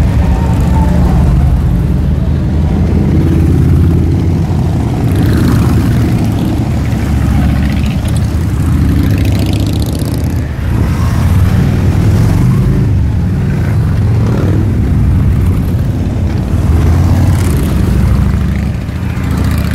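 Cruiser motorcycles, largely Harley-Davidson V-twins, riding past one after another with a low engine rumble. The sound swells and falls in pitch as each group passes close by.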